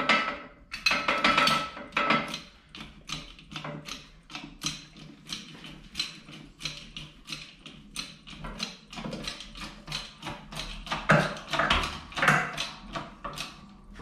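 12-ton shop press's hydraulic bottle jack being pumped by hand: a quick train of metallic clicks, about three a second, with louder clanks about a second in and again around eleven to twelve seconds in. The press is being loaded to push the worn wheel hub out of the knuckle.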